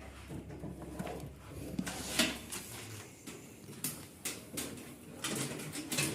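Scattered sharp clicks and light knocks of hands and tools working on washing machine parts, about half a dozen, most of them between about four and six seconds in.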